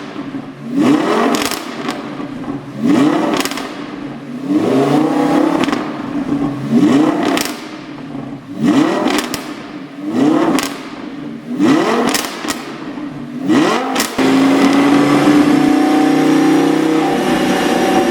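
Audi R8 5.2 FSI's V10 engine revved in short blips, about nine of them roughly every second and a half, each followed by sharp pops and crackles from the exhaust on the overrun, the effect of a pop-and-bang tune. About fourteen seconds in the blipping stops and the engine holds a steady, higher speed.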